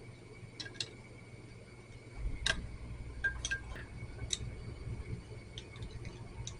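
Scattered light metallic clicks and clinks of hand tools and small motorcycle engine parts being handled, the sharpest about two and a half seconds in. A low hum comes in about two seconds in.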